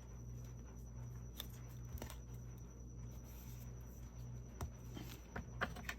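Faint handling of cardstock: a few light clicks and taps as the paper is positioned and pressed into place, over a steady low hum.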